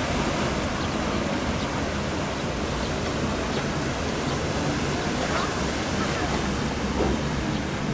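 Paddle wheels of the 1906 paddle steamer Blümlisalp churning the lake water, a steady rushing splash.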